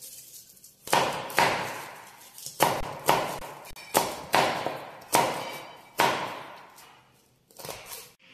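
Kitchen knife chopping garlic cloves on a plastic cutting board: about ten sharp knocks of the blade hitting the board at an irregular pace, each trailing off over most of a second.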